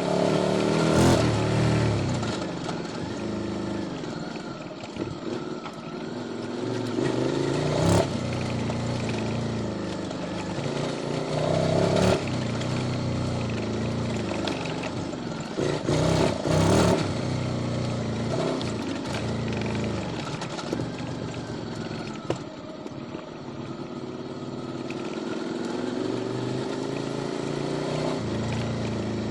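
QJ Motors SVT650X V-twin on an Arrow Racetech exhaust with custom headers, ridden hard: the engine note climbs and drops repeatedly as it revs through the gears. A few sharp cracks stand out along the way.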